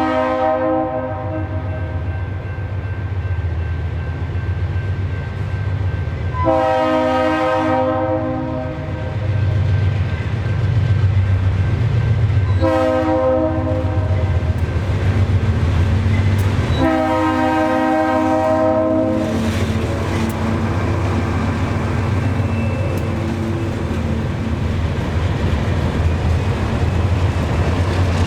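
Diesel freight locomotive's air horn sounding the grade-crossing signal: the end of one long blast, then a long, a short and a long. Each blast is a chord of several held notes, over the steady low rumble of the engine and the coal train's wheels on the rails.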